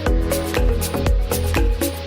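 Background electronic music with a steady beat: a low kick about twice a second under bright percussion and held synth notes.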